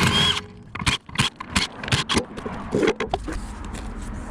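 Irregular metallic clicks and clatter from a 17mm socket and lug nuts being worked as the wheel's lug nuts are taken off.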